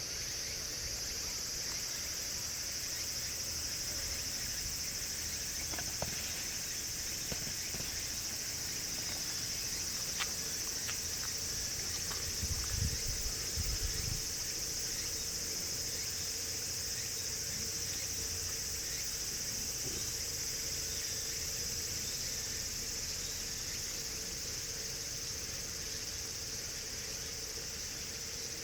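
Steady high-pitched drone of an insect chorus, with a few low thumps about halfway through.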